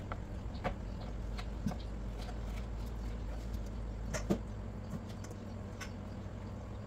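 Kitchen knife cutting raw beef on a plastic cutting board, with a few light clicks and knocks, the loudest a quick double knock about four seconds in, over a steady low hum.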